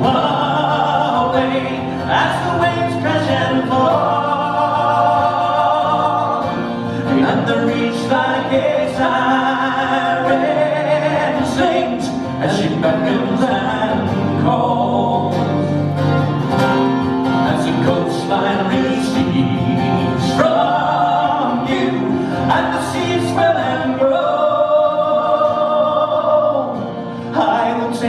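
Men singing a song to an acoustic guitar accompaniment.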